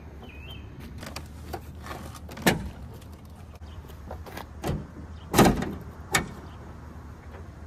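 A Ford Mustang's door and hood latch being worked: a few clicks, a knock about two and a half seconds in, then the loudest clunk about five and a half seconds in as the hood is released, and a further click, over a low steady rumble.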